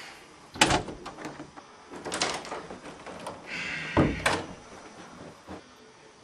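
An interior door being opened and closed: a few clicks and knocks from the knob and latch, with a short scrape and then the loudest thump about four seconds in.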